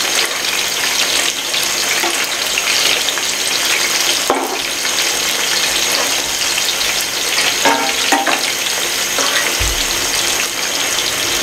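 Chicken chapli kababs sizzling steadily as they deep-fry in a pan of hot oil.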